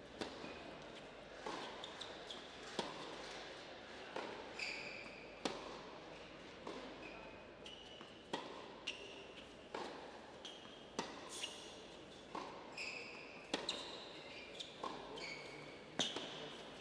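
A tennis rally on an indoor hard court: a ball struck back and forth by rackets and bouncing, with a sharp hit or bounce roughly every second and a half. Short high shoe squeaks come between the shots.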